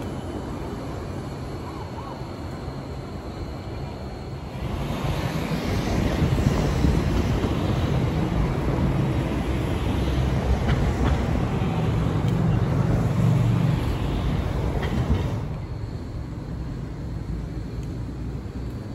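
Articulated city tram passing close by: the rumble of its wheels on the rails and its running gear swells for about ten seconds, with a few brief faint squeals, then drops back to a steady street background.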